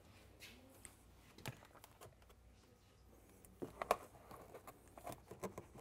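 Faint clicks and rustling of hands working plastic interior trim and a wire at a car's A-pillar, with a louder cluster of clicks about four seconds in.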